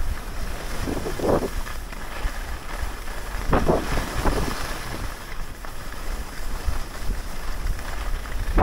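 Wind buffeting the microphone, with the steady hiss of sliding down groomed snow. The hiss swells in a few short scrapes as the rider turns.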